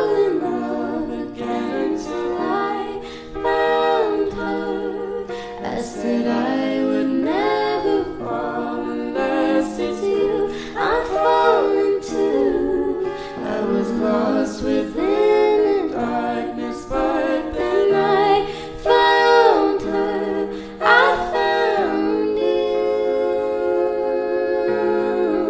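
A song playing as background music: a solo singing voice holding and bending long notes over light instrumental accompaniment.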